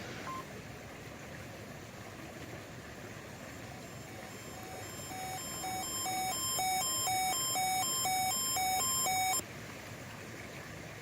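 Weather radio receiver's alert alarm: two tones alternating about twice a second, growing louder over a couple of seconds, then cutting off suddenly, over steady radio hiss. It signals a received NOAA Weather Radio weekly test.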